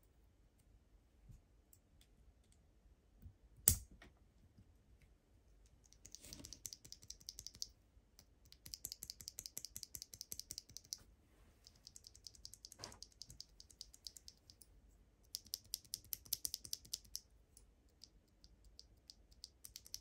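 A clear-housed mechanical keyboard switch (Aquaking V3) pressed rapidly between the fingers, in four runs of fast, light clacking with short pauses between. There is one sharp single click a little under four seconds in.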